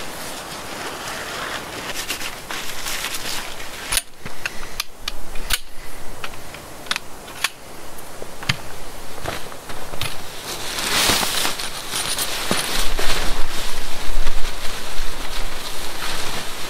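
Tent fabric rustling and crinkling as a tent is spread out and pitched on its centre pole, with a run of sharp clicks and snaps through the first half and a low rumble in the last few seconds.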